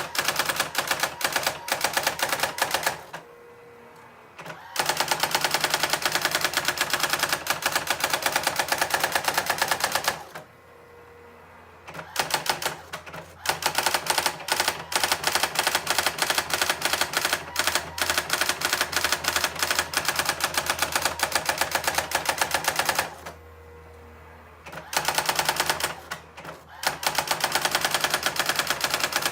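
Brother SX-4000 electronic typewriter printing in rapid, evenly spaced strokes, in runs of several seconds. It pauses three times, with only a faint motor hum between runs.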